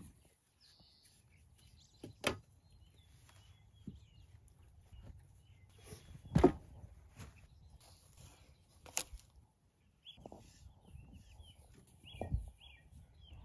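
A few separate knocks and thumps on wooden floor framing lumber as it is walked over and handled, the loudest about six seconds in. Small birds chirp in the background near the end.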